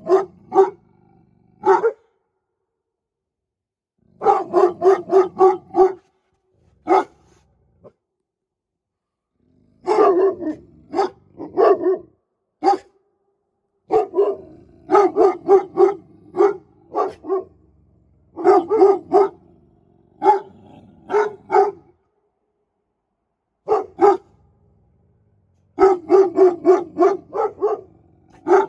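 Presa Canario barking in quick runs of several barks at a time, with short silent pauses between runs and a few single barks in between.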